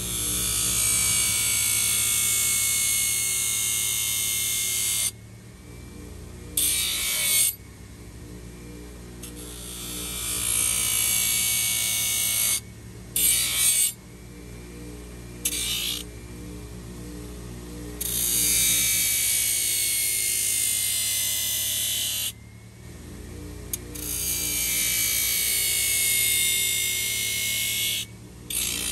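A metal horseshoe being ground against a spinning abrasive-belted wheel on a bench grinder: a loud, harsh hiss that breaks off every few seconds as the shoe is lifted and turned. The grinder motor's low hum runs underneath.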